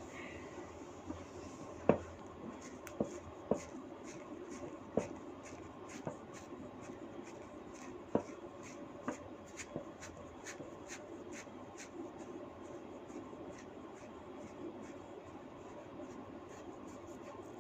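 Hands working through long hair on the scalp: a soft, steady scratching and rubbing, with scattered sharp little snaps and clicks from hair-cracking, the strongest about two seconds in and again about eight seconds in.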